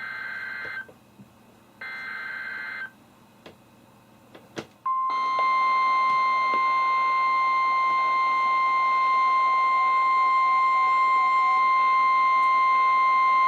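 The last two SAME digital header bursts of an Emergency Alert System message from a NOAA weather radio: short, rasping data tones about a second each, a second apart. About five seconds in, the 1050 Hz warning alarm tone sounds as one steady loud tone held for about nine seconds, announcing a severe thunderstorm warning.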